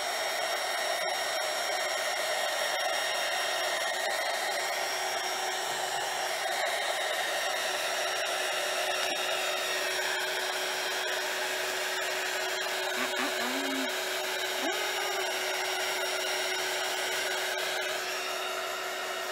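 Small handheld heat gun running steadily, blowing hot air over wet epoxy resin to warm it and make it flow: a continuous rush of air with a constant whine.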